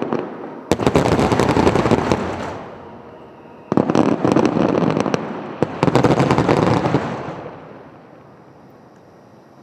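Aerial fireworks going off in two dense volleys of rapid crackling bursts, one starting about a second in and the next a few seconds later, each dying away; the second fades out about three-quarters of the way through.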